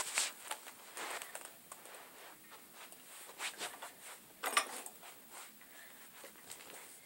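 Faint scattered rustling and light clicks of people moving about, with a slightly louder clatter about four and a half seconds in.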